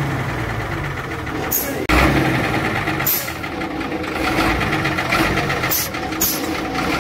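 Diesel engine of a 2003 Ashok Leyland bus running steadily just after a cold start following about ten years parked. Several short, high hisses come and go over it, and a sudden louder thump comes about two seconds in.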